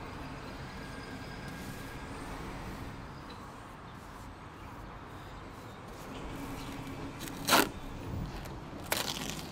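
A sharp knock about seven and a half seconds in, with two smaller clacks near the end, as painting tools are handled on a narrowboat's steel roof. Behind it is a faint steady hum.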